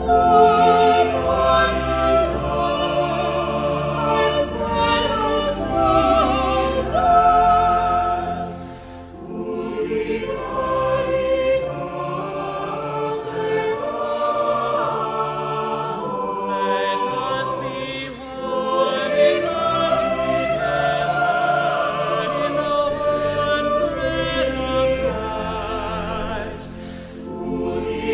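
Recorded choral music: a choir singing held, wavering notes over instrumental accompaniment, in phrases broken by short pauses about every nine seconds.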